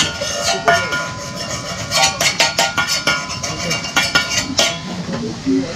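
A metal spatula stirring and scraping in a black frying pan, a quick run of ringing metallic clinks and taps that stops near the end.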